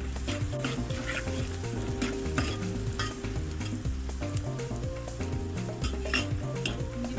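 Metal spoon stirring sliced onions and chicken frying in a steel pot, with a steady sizzle and frequent irregular clinks and scrapes of the spoon against the pot.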